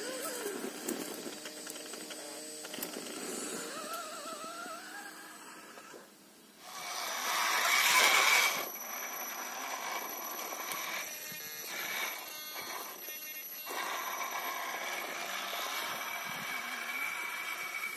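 Electric motors and gear trains of radio-controlled rock crawlers whining as they climb rock, a high steady whine with a lower pitch that wavers with the throttle. A loud rushing noise lasts about two seconds near the middle.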